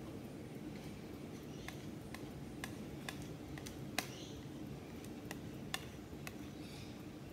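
Irregular light clicks and taps of a steel palette knife and a glass muller against a glass slab while mulling watercolour paint, the loudest about four seconds in.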